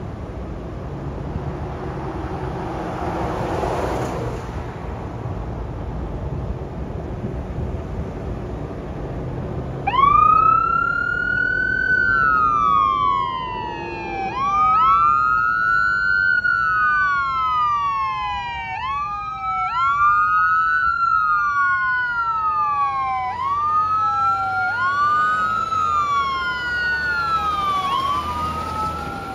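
Road traffic noise, then about ten seconds in emergency-vehicle sirens start wailing: two wails out of step with each other, each rising quickly and falling slowly, over and over.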